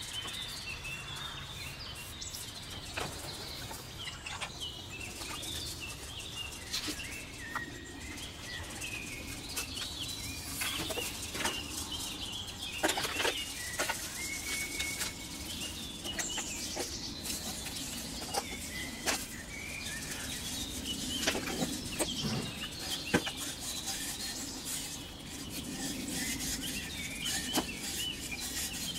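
Small birds chirping on and off in the background, with scattered scrapes, taps and knocks from hands working a concrete planter and sand in a plastic tub.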